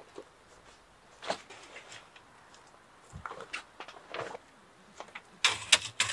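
Scattered light knocks and clicks of things being handled and moved about in a small space, with a louder cluster of sharp knocks and rustling about five and a half seconds in.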